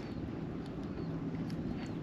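Steady low outdoor rumble with a faint hum through the middle and a few faint, short high chirps.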